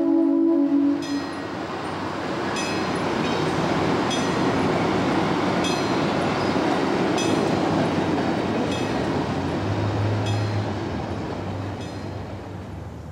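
A diesel locomotive's horn sounds and dies away about a second in. Then a train rolls past with a steady rumble, clicks of wheels over rail joints and a low engine hum, fading near the end.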